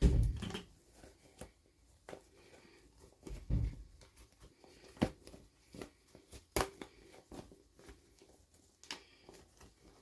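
Hands unboxing small plastic toys and packaging: scattered clicks and taps, with a low thump at the start and another about three and a half seconds in.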